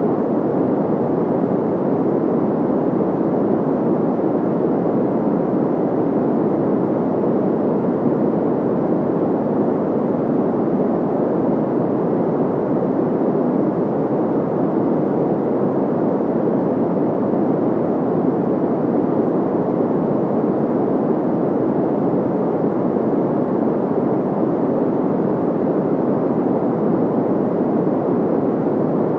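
Steady, unbroken white-noise sound effect, filtered so it sounds like a deep, muffled rushing hiss with little treble. It does not change in level or character.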